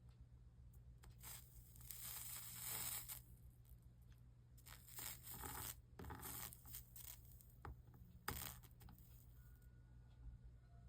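Flux sizzling and crackling as a soldering iron melts 60/40 solder along copper-foiled stained-glass seams, in several short bursts, with a sharp click about eight seconds in.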